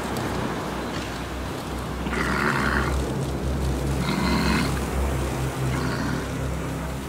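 Walrus bulls on a haul-out giving three rough, grunting calls about two seconds apart, over a steady low rumble.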